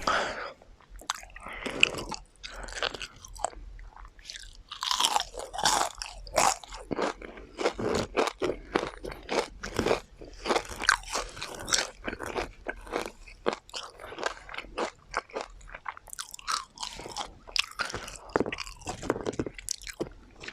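Close-miked crunching and chewing of deep-fried chicken tendons: loud, crisp bites followed by rapid crackly chewing.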